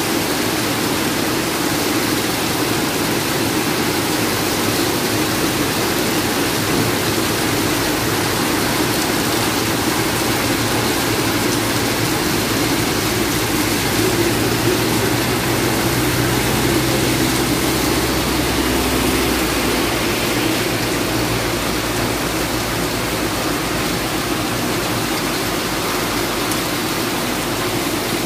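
Heavy downpour: a steady rush of rain falling and splashing, with water streaming and pouring off roofs and slopes. A low hum joins in for about ten seconds in the middle.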